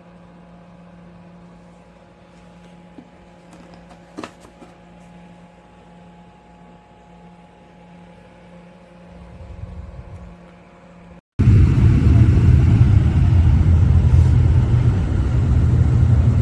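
A quiet steady hum with a single click about four seconds in, then, after a sudden cut, a loud low rumble like road noise inside a moving car.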